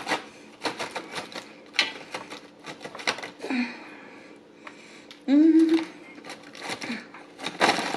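Croutons being shaken out of their bag onto a salad: a run of small dry clicks and rattles with bag rustling. About five seconds in there is a short, loud hum-like vocal sound from the eater.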